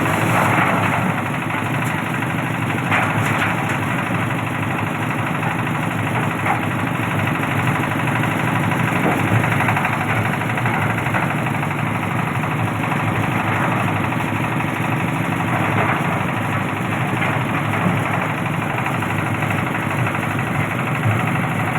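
Engine-driven oil palm fruit threshing machine running steadily, with a few faint brief clicks over the continuous machine noise.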